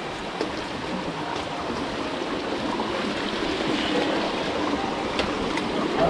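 Water of a rocky stream rushing and splashing, a steady, even rush.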